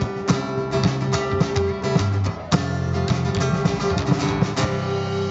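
Live bluesy rock trio playing: two guitars over a drum kit, with a steady beat of drum and cymbal hits. The band drops out for a moment a little over two seconds in, then comes back in on a hard hit.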